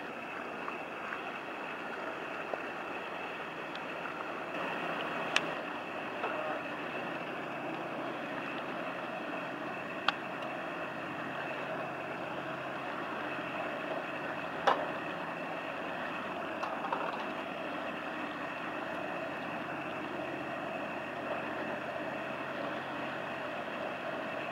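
Steady drone of passing inland river boats' engines, with a faint high steady whine over it and a few sharp clicks scattered through.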